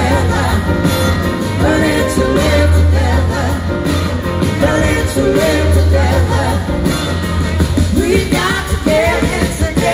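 Live rock band playing with singing, recorded from among the audience: full band with a heavy, steady bass and vocals over the top.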